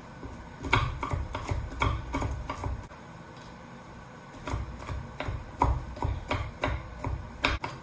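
Chef's knife chopping pistachios on a wooden chopping board: quick knocks of the blade on the board, in two runs with a pause of about a second and a half in the middle.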